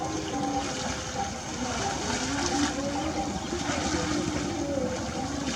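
Steady rumbling outdoor noise with faint distant voices of people calling to each other.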